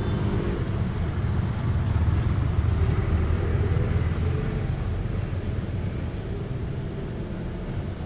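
Low rumble of passing road traffic that swells a few seconds in and then eases off.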